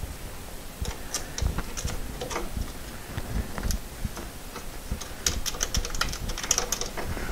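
Small metallic clicks and clinks of a wrench and a cut-off Allen bit being fitted and worked on an engine mount bracket bolt. They come irregularly, then bunch into a quicker run of ticks about five to seven seconds in.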